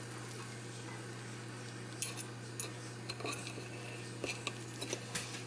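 Knife and fork cutting through a stuffed turkey meatball, clicking and scraping against the plate several times from about two seconds in, over a steady low hum.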